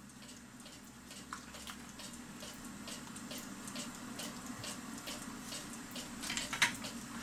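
Quiet workbench sounds: a steady low hum under faint, evenly spaced light ticking, and a short sharp clatter of small glass bottles being handled about six and a half seconds in.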